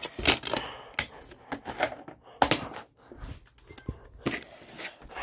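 A run of irregular sharp clicks and knocks, about a dozen, uneven in spacing and loudness, like hard objects being handled.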